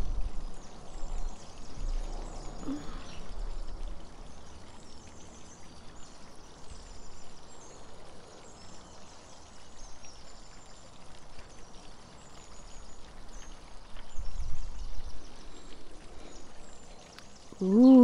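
Backyard water fountain trickling steadily, with faint bird chirps. Low rumbles come in the first few seconds and again about fourteen seconds in.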